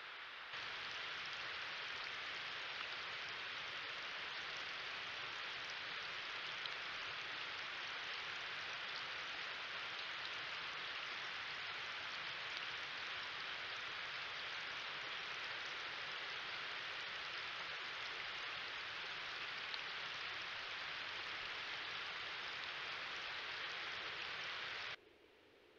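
Steady, even hiss with a few faint ticks, starting about half a second in and cutting off suddenly near the end.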